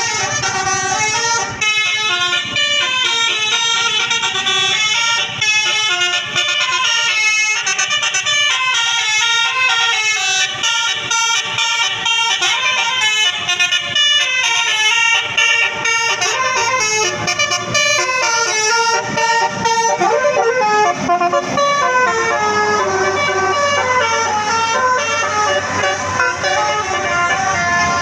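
Tour bus 'telolet basuri' musical air horn playing a melody of quick stepped notes, one tune running on without a break.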